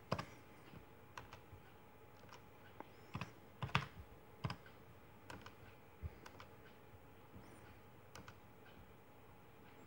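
Keystrokes on a Lenovo laptop keyboard: scattered sharp key taps, a few quick runs of taps with pauses between them.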